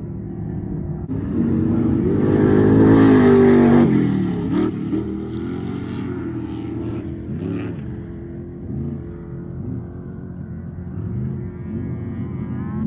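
Off-road race truck engine passing close at speed, loudest about three seconds in, its pitch dropping as it goes by; then engines revving up and down further off.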